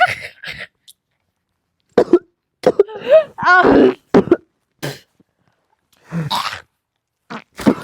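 A person coughing and clearing her throat in several short separate bursts, with a brief voiced sound in between.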